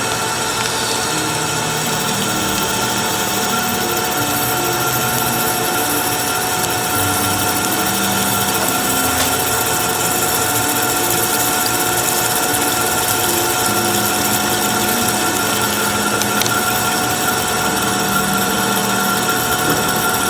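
Machine tool running steadily while machining (drilling or boring), a constant mechanical noise with a steady high whine.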